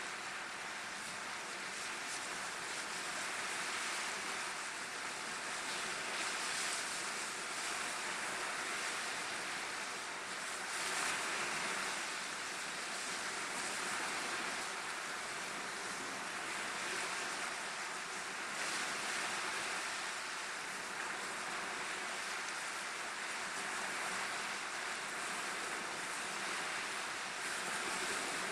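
Wind-driven waves washing and splashing against rocks and the shore: a steady hiss of surf that swells and eases.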